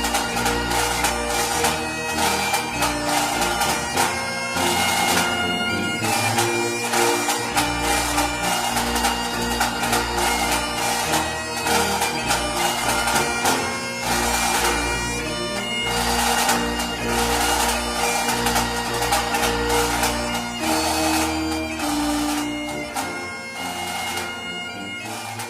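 Bagpipe music: a melody played over steady drones, fading out near the end.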